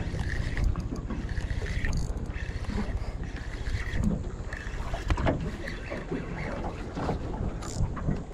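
Wind buffeting the microphone over moving water on a reef edge, a steady rumbling noise that rises and falls. A few sharp knocks cut through it, about five seconds in and again near the end.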